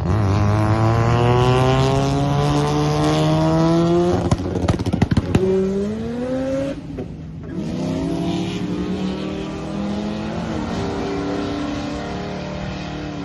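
High-performance car engine accelerating hard, its pitch rising steadily for about four seconds. A burst of sharp crackles follows, then a second rise, a short dip about seven seconds in, and steadier running to the end.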